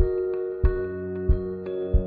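Background music: soft, sustained keyboard and mallet-like tones over a low beat that thumps about every two-thirds of a second.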